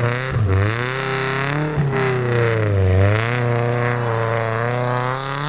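Rally car's engine revving hard under load as it pulls out of the snowbank, its pitch rising and falling several times as the revs change.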